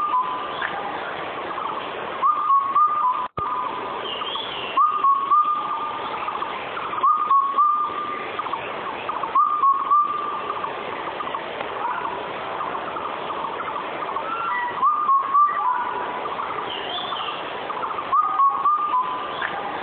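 Indian cuckoo calling its whistled four-note 'bou kotha kao' phrase, repeated about every two to three seconds over a steady background hiss. A faint higher chirp from another bird comes in a few times.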